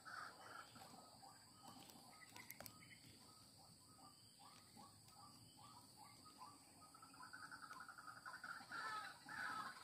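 Faint bird calls: a run of short, falling calls about two a second, then a fast, even trill near the end.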